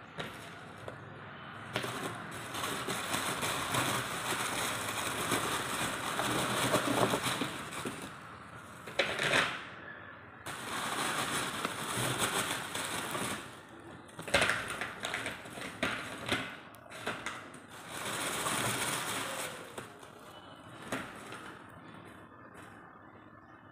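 Lumps of charcoal being picked up and set down one after another on a paper plate that rests on a plastic sheet: long stretches of crinkling and rustling, with a few sharp clicks as pieces land.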